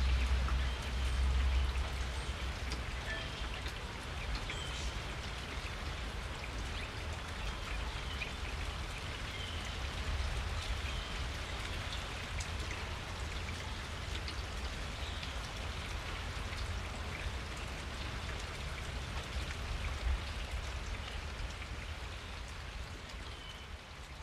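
Steady rain falling and pattering on surfaces, over a low steady rumble, with a few short bird chirps scattered through. It fades down near the end.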